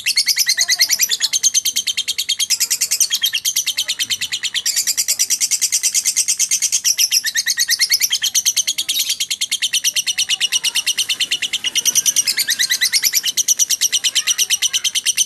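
Lovebird in 'ngekek', a fast unbroken chattering trill of high, evenly repeated notes that runs on without a pause. This non-stop 'konslet' style of ngekek is prized by lovebird keepers.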